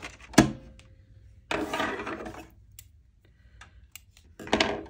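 Handling noises from sewing and paper-craft materials on a work table: one sharp knock about half a second in, then two short rustling, scraping sounds.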